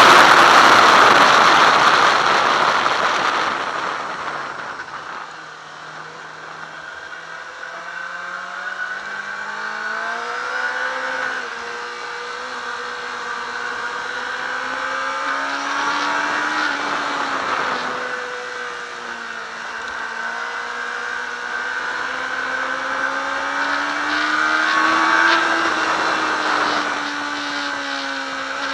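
Yamaha R6 sport bike's inline-four engine heard onboard at track speed. Loud wind rush on the microphone fades over the first few seconds. The engine note then climbs steadily and keeps rising and falling with the throttle through the corners.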